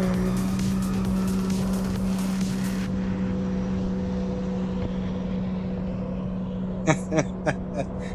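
Sea-Doo RXP-X jet ski's supercharged Rotax 300 engine at full throttle as the ski speeds away, a steady high engine note that slowly fades with distance. A few short sharp sounds come near the end.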